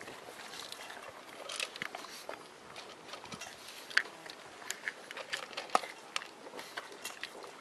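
Pug eating dry kibble from a plastic maze slow-feeder bowl: irregular crunching and sharp clicks as it picks pieces out of the ridges, with two louder clicks about four and six seconds in.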